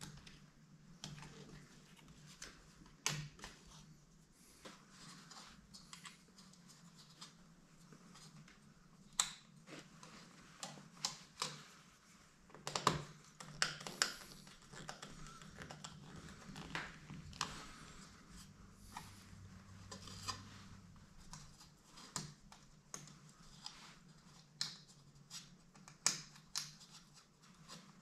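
Scattered small clicks, taps and scrapes as a plastic wall thermostat is handled and a small screwdriver works on its wiring terminal screws, over a faint steady low hum.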